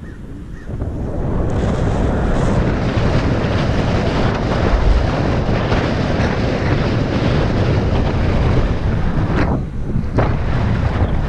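Heavy wind buffeting the microphone of a rider moving at speed on an electric scooter. It swells about a second in and dips briefly near the end.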